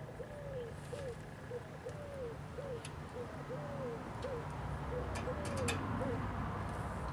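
A dove cooing, a three-note coo repeated in an even rhythm, with a few sharp clicks about five seconds in.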